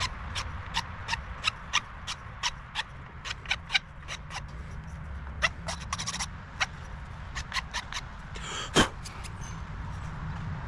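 Metal hand file scraping across the tip of a wooden dowel in short, quick strokes, about three a second, pausing briefly and then going on; one louder scrape stands out near the end. The strokes are shaping the pointed nose of a carved wooden fishing lure.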